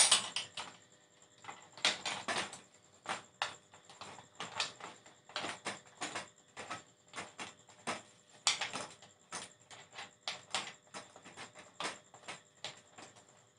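Irregular small clicks, taps and scrapes of hands fitting a small refractor telescope's tube onto its alt-azimuth mount and turning the fixing screws, with a few denser clusters of clicks.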